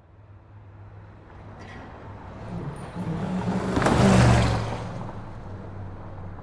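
Sports car speeding past on a highway: its engine and tyre noise build steadily, peak sharply about four seconds in as it passes, then fade as it moves away.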